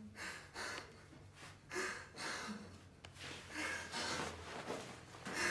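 A man breathing hard, with short audible breaths in and out recurring every half-second to second.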